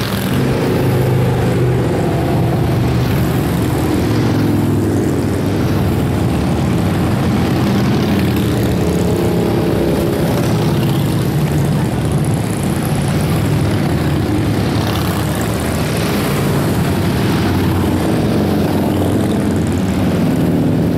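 A stream of large cruiser and touring motorcycles passing at cruising speed, their engines blending into a continuous drone that swells briefly as individual bikes go by close.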